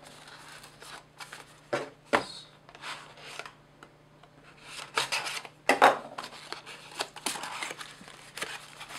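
Cardboard and plastic packaging being opened and handled by hand: rustling and scraping, with a few sharp taps and knocks, the busiest stretch just past the middle.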